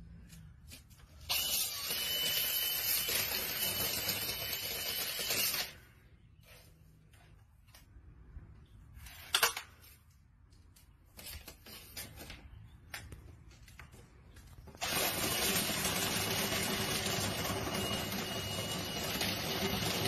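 Cordless drill spinning a rotary brush rod inside a lint-clogged dryer vent: a steady rushing whine with a thin high tone. It runs for about four seconds, stops for several seconds with scattered knocks and clicks, then starts again about fifteen seconds in.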